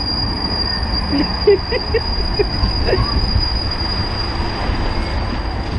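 Steady low rumble of a rapids-ride raft travelling through the rushing water channel, with a few faint short voice-like sounds in the middle.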